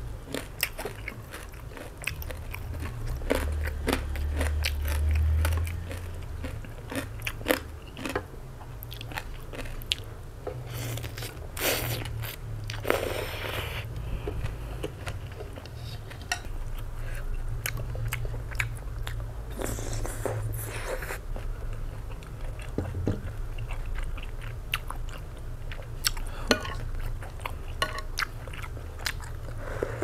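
Close-up eating of egg noodle soup with pork: wet chewing, mouth clicks and crunching, with longer slurps about 12 and 20 seconds in. A steady low hum runs underneath.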